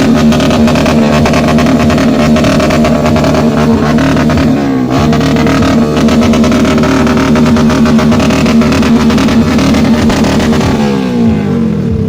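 Motorcycle engine held at high revs, dipping briefly about halfway and falling off near the end.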